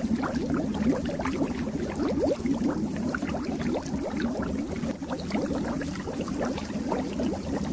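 Fish tank water bubbling: a dense, continuous stream of small bubbles gurgling and popping.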